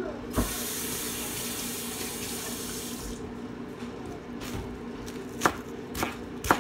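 A kitchen tap runs for about three seconds, starting and stopping abruptly, then a chef's knife begins chopping escallion on a plastic cutting board: sharp strokes about two a second near the end.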